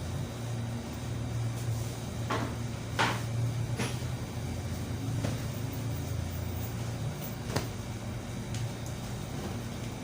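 Steady low hum with several short, sharp clicks scattered through it.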